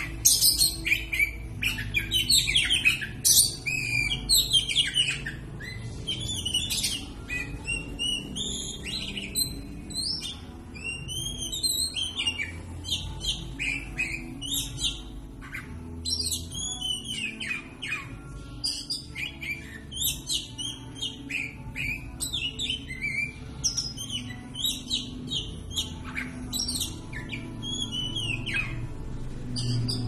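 Oriental magpie-robin singing without pause: a loud, varied song of clear whistles and quick up-and-down trills, loudest in the first few seconds.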